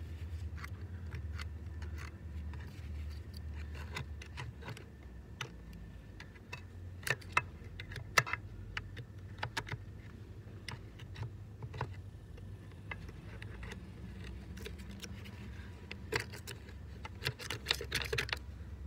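Hand tool and gloved hands prying and scraping at the mini excavator's final drive cover plate and the frozen mud packed into it: irregular metallic clicks, scrapes and knocks, in two busier flurries partway through and near the end, over a steady low rumble.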